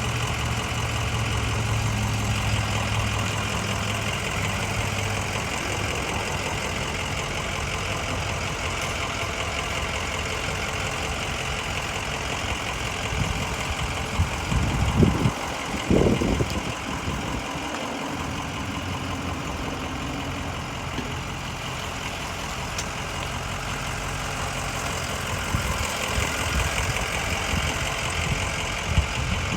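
Ambulance engine idling and running at low speed while the vehicle is manoeuvred, with a few brief louder knocks about fifteen seconds in.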